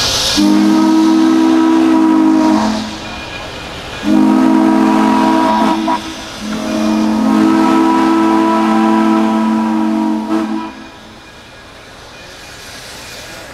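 Steam whistle of Frisco 1630, a 2-10-0 Decapod steam locomotive, sounding a chord of several steady tones in three blasts, the last the longest. Escaping steam hisses underneath as the engine moves off.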